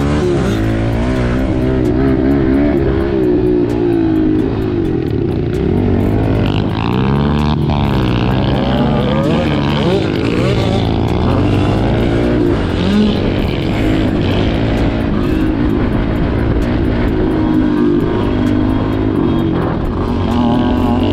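Dirt bike engine heard close up from the rider's own bike while it is ridden. It revs up and eases off again and again, the pitch climbing and dropping with throttle and gear changes.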